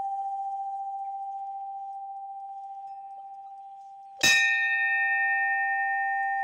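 A hanging temple bell ringing and slowly fading, then struck once about four seconds in. It rings on with a clear, lingering tone.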